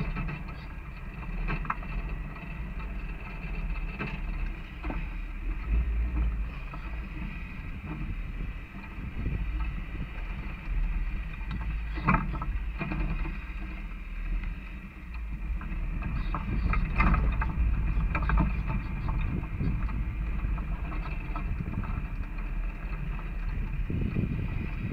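Off-road vehicle driving over a rough dirt trail, heard from on board: a steady low rumble of engine and tyres, with scattered rattles and knocks as it jolts over rocks, the sharpest about twelve seconds in and again around seventeen seconds.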